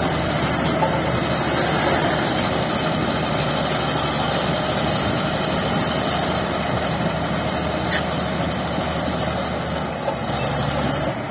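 Shantui bulldozer's diesel engine running steadily, with a thin high whine over it, easing off slightly in the last few seconds.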